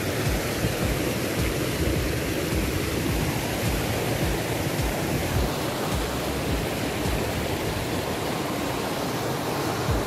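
Shallow rocky stream rushing over stones and small rapids: a steady, unbroken rush of water.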